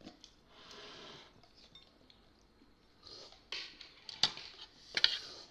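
Spoons and forks clinking against ceramic soup bowls and plates, with a few sharp clinks in the last couple of seconds. Near the start, a brief soft rattle of salt shaken from a small glass shaker.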